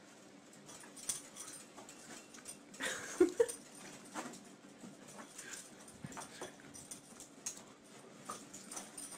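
A small dog whimpering, with a couple of short yips about three seconds in, among light taps and scuffles.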